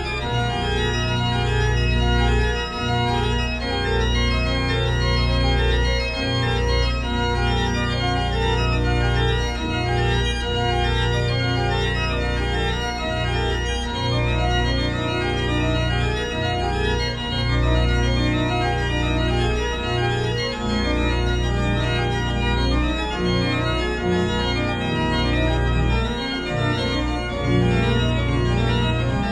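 Organ music: chords changing every half-second or so over a steady bass.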